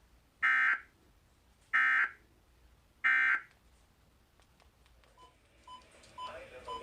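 Emergency Alert System end-of-message signal: three short bursts of SAME digital data tones, about a second and a quarter apart, marking the close of the tornado warning. Fainter short beeps follow in the last two seconds.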